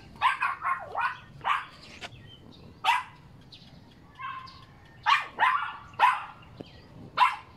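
A dog barking repeatedly: about nine short, sharp barks in uneven clusters, with a pause in the middle.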